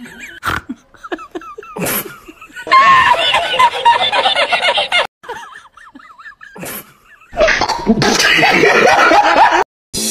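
Bursts of loud human laughter mixed with excited, shrieking voices, in two long loud stretches. The sound cuts off abruptly twice.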